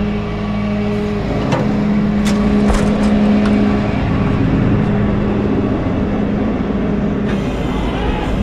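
Rollback tow truck's engine and bed hydraulics running with a steady hum that dips and changes as the operator works the bed levers to shake off a van stuck in park. Several sharp metallic clicks between about one and three seconds in.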